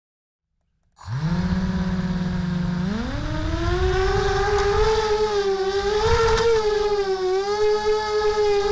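Mini FPV quadcopter's Sunnysky brushless motors and propellers spinning up about a second in: a steady whine that climbs sharply in pitch about three seconds in as the quad takes off, then wavers up and down with the throttle.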